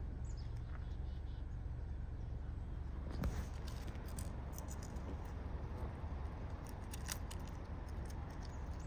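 Birds pecking at and tearing into a bag of chips: scattered sharp clicks and crinkles, bunched about three to four seconds in and again near seven seconds, over a steady low rumble.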